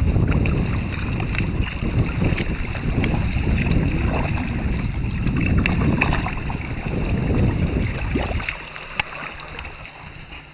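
Wind rumbling on the microphone over water splashing from sea-kayak paddle strokes. About eight and a half seconds in, the rumble drops away to a quieter background with a single sharp click.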